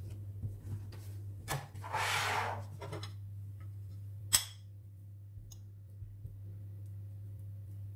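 Papery rustle as a thin spring roll pastry sheet is handled, then one sharp crockery clack as a plate of banana slices meets the board, followed by a few light clicks of a fork against the plate as the slices are pushed off. A steady low hum runs underneath.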